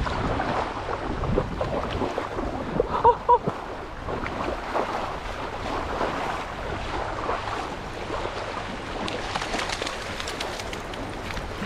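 Shallow water splashing and lapping as a hooked summer flounder is drawn in to the shore, with wind on the microphone. About three seconds in there are two short pitched blips, the loudest sounds here, and near the end a run of short crackling clicks as the angler steps onto a shell-covered beach.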